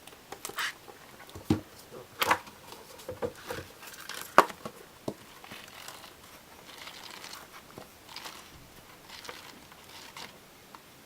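Pages of a hardcover book being turned and the book handled: irregular paper rustles and soft taps, the sharpest about four and a half seconds in.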